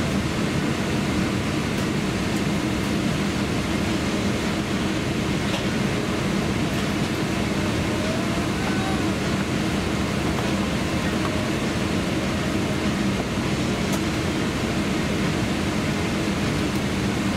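Steady cabin noise inside a Boeing 777-300ER during pushback: an even rush of air with a low, steady hum underneath.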